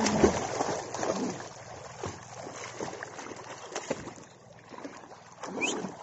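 A Belgian Malinois swimming, its paddling legs splashing and sloshing the river water. The splashing is heaviest in the first second or so, then lighter.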